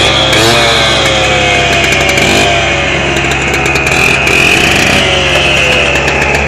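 Gas-powered cut-off saw cutting into the 6-inch water main pipe: the engine runs hard under load with a high cutting whine, both slowly dropping in pitch as the blade bites.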